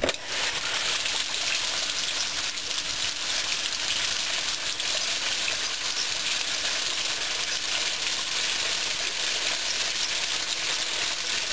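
Whirlpool washing machine on its fill cycle: water spraying steadily into the tub through the inlet, a constant hiss with a faint steady hum underneath.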